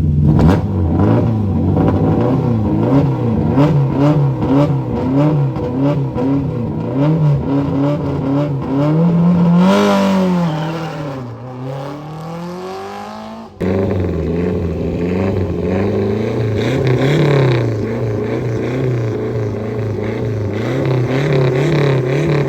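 Historic rally car's engine blipped repeatedly on the start line, the pitch swinging up and down about once a second; about ten seconds in it launches, the note rising sharply and then falling away as the car pulls off. After an abrupt cut, the next car's engine is blipped on the line the same way.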